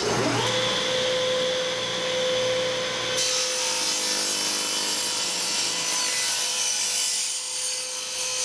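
Table saw running at a steady speed, then its blade ripping a thin strip off a block of wood from about three seconds in, pushed through with a plywood push jig while the stock lifts up on the blade.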